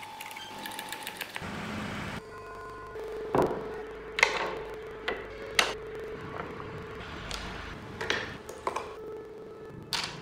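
Wooden model car parts knocking and clacking as they are handled and set down on the workbench. There are about half a dozen separate sharp knocks, spaced irregularly, over a steady low hum.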